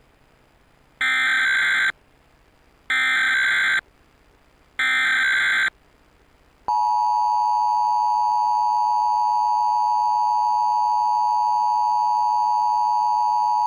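Emergency Alert System broadcast header: three short bursts of SAME digital data tones, each just under a second long and about a second apart. About six and a half seconds in, the steady two-tone EAS attention signal (853 and 960 Hz together) begins.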